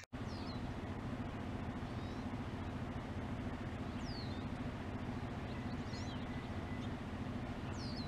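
Steady low mechanical hum with a background hiss, and four brief high chirps from a bird, each falling quickly in pitch.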